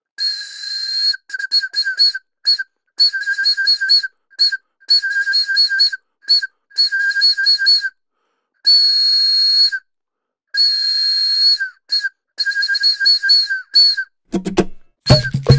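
Wooden bird-shaped toy whistle (Djeco Animambo) blown in quick short toots and wavering trills, with two longer held notes in the middle; one high, clear pitch throughout. Music comes in near the end.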